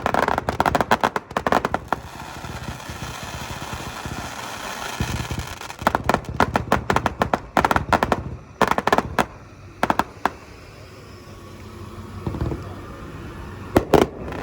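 Stunner 239-shot aerial cake, a barrage-finale firework, firing in rapid volleys of sharp shots. Between the volleys there is a steady crackling hiss.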